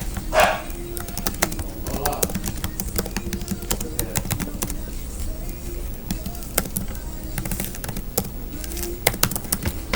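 Irregular sharp clicks and taps, a few a second, over a low steady hum, with faint music in the background.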